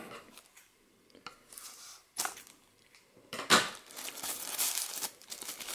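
Plastic packaging bag crinkling and rustling in short bursts as a hard drive caddy is slid out of it.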